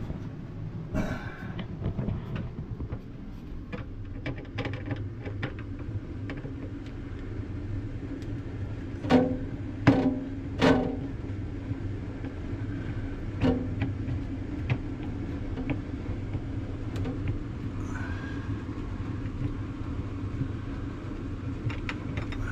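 Light clicks of a small Phillips screwdriver working a shelf-bracket screw inside a 12-volt refrigerator. Three sharp, ringing metal clinks come between about nine and eleven seconds in, and a smaller one follows a few seconds later, all over a steady low hum.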